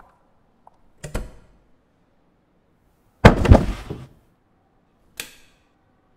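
A door swinging shut with a thud about a second in, then a loud, heavy crash with a deep low end in the middle, and a single sharp knock near the end.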